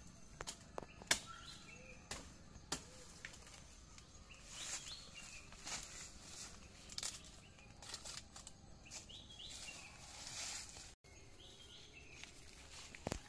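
Rustling of banana leaves and undergrowth with irregular footsteps and a few sharp knocks as banana bunches are handled and carried, the loudest knock about a second in. Birds chirp faintly.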